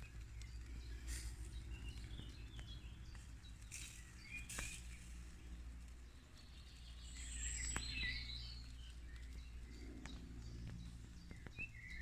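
Small birds chirping in short scattered calls, strongest about seven to eight seconds in, over a low steady background rumble, with a few faint sharp clicks.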